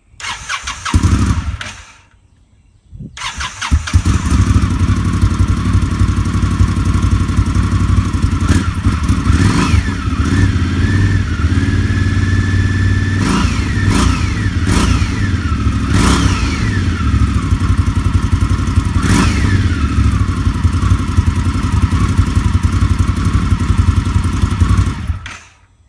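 Indian Scout V-twin motorcycle on its stock exhaust starting up: a short first burst, then it catches about three seconds in and runs, blipped up and down several times, before being shut off near the end.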